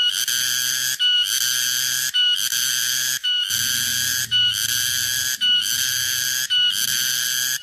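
Tonggeret (garengpung) cicada singing a loud, buzzy, whistle-like call in even phrases about once a second, each starting with a brief higher note and separated by short gaps.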